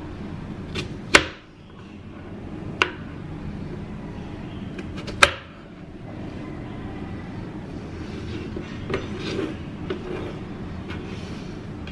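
Small kitchen knife cutting peach slices and knocking down onto a cutting board: three sharp knocks about one, three and five seconds in, with a few fainter taps later, over a steady low background hum.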